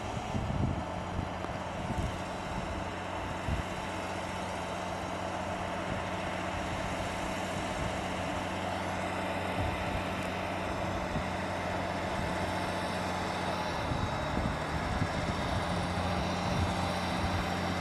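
Truck engine running steadily on the move, over a steady hiss of rain and road noise.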